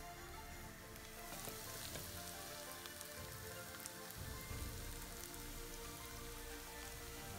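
Food cooking in pans: a boiling curry bubbling, then from about a second in a brighter, steady sizzle with scattered small pops as bitter gourd fries in oil. Soft background music plays underneath.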